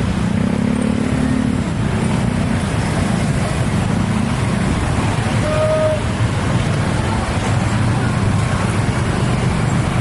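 Steady road traffic noise: motor vehicles running at a level crossing, with a short high beep about six seconds in.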